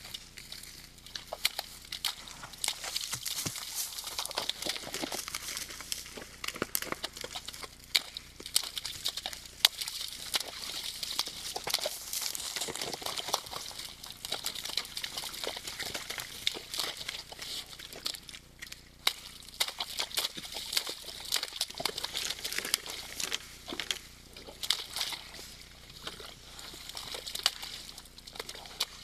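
Red deer splashing and trampling in a muddy wallow: mud and water sloshing, with many small splashes and squelches.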